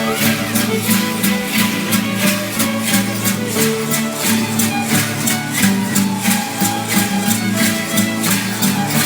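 Traditional dance music played on fiddle and strummed guitar, with a steady beat of about three strokes a second.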